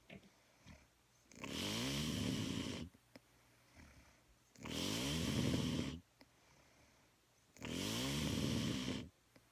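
Snoring: three long snores about three seconds apart, each lasting about a second and a half, with quiet between them.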